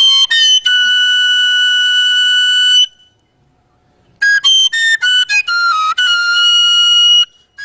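Solo Igbo oja, a short wooden end-blown flute, played in high, piercing notes. A few quick notes lead into a long held note, then comes a pause of about a second. A run of quick notes follows, ending in another long held note, and further quick notes come near the end.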